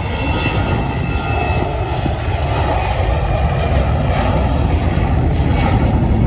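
A fixed-wing aircraft's engines running loud and steady, a dense rushing noise with several steady whining tones. Under it is a heavy low rumble of wind on the microphone.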